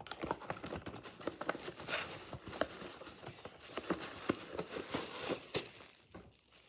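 Headphone packaging being handled and opened: rustling and crinkling with many small clicks and taps, easing off near the end.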